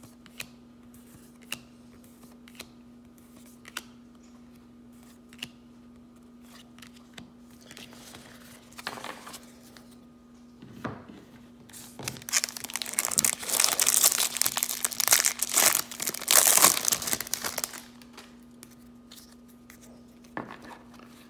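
Trading cards being handled with soft, scattered clicks, then about twelve seconds in several seconds of loud crinkling and tearing of a plastic card-pack wrapper.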